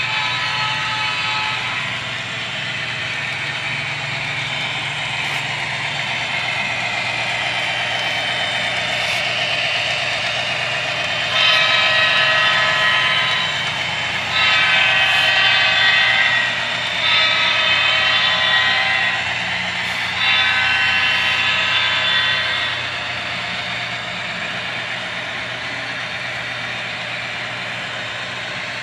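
Sound-equipped model diesel locomotive: a steady engine rumble, with a multi-chime horn sounding four long blasts about halfway through.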